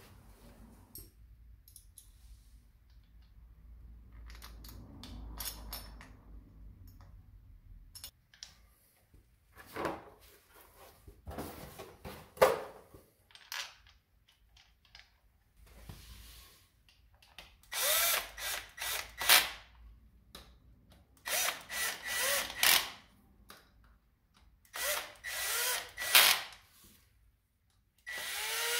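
Cordless drill-driver spinning in short bursts, each starting with a rising whine, in several clusters through the second half, as it runs in the bolts of a Triumph Bonneville's engine side cover. Before that, faint clicks of parts being handled.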